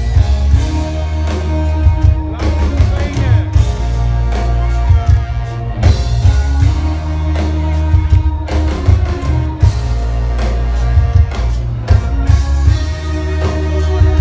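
Band music with a drum kit, heavy bass and guitar, and a voice singing now and then; the drum hits keep a steady beat.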